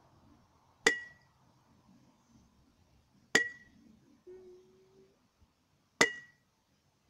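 A mallet strikes the mouth of a water-filled 10-ounce glass bottle three times, about two and a half seconds apart. Each blow is a sharp knock with a short clinking ring of the glass, the blow driving pressure through the water to try to knock the bottle's bottom out.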